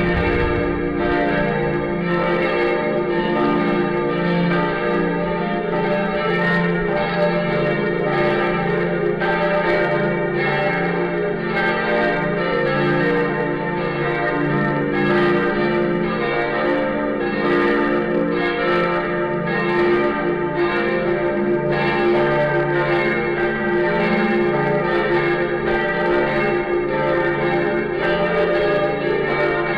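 The Lindenkirche Berlin's church bells in full peal: several swinging bells ringing together in a continuous, overlapping peal, strokes recurring steadily under a long-sustained hum of their tones.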